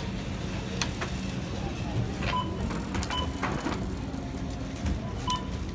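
Shopping cart rolling across a store's hard floor: a steady low rumble with small rattles and clicks. Three short electronic beeps sound in the background, a little after two seconds in, about a second later, and near the end.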